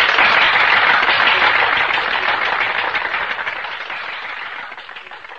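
Crowd applauding, a dense patter of many hands clapping that fades away steadily.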